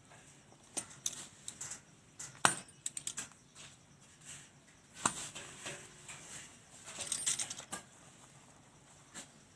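A pizza cutter cutting through a sandwich: sharp clicks and taps of the metal wheel against the surface beneath, the loudest about two and a half seconds in and again at five seconds, with a quick run of clicks around seven seconds.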